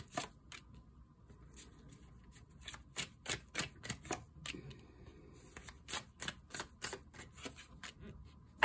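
A deck of tarot cards shuffled by hand: quick runs of light card clicks and flicks, sparse at first and densest about three and six to seven seconds in, with cards laid down on a table.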